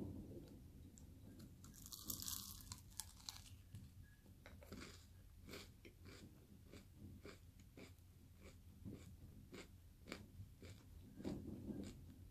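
Someone bites into a crunchy cornflake cluster bound with honey, butter and chocolate: a loud crunch about two seconds in, then steady crunching as it is chewed, about two crunches a second.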